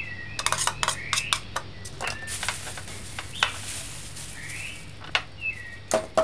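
A steel kitchen knife clinking against a ceramic bowl and tapping and scraping on a plastic cutting board: a quick run of sharp clicks, then a scrape, then a few scattered knocks as the knife is set down and a jar is picked up.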